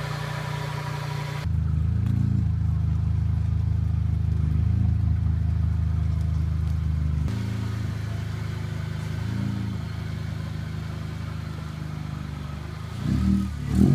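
Car engine running at a steady low idle. Its pitch jumps abruptly twice, with a few brief swells, and a couple of louder knocks come near the end.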